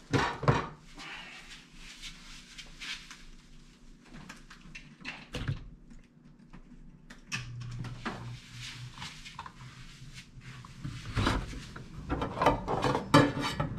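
Scattered knocks and clicks of things being handled, with loud rustling and knocking near the end as cloth rubs against the camera while it is moved.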